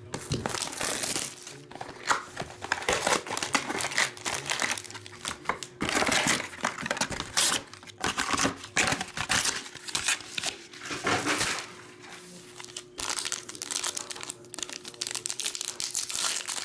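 Packaging crinkling and tearing as a trading-card box is ripped open and foil card packs are handled and torn open, in repeated irregular bursts of rustling.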